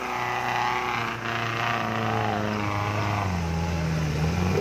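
Engine of a small 4x4 off-roader working hard as it climbs a steep dirt hill. Its pitch sags about three seconds in as it labours, then rises again near the end.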